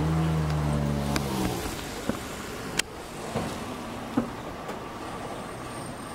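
A crane's engine is held at high revs while it hoists a wooden river boat, then drops back about a second and a half in. A few sharp knocks follow, spaced about a second apart.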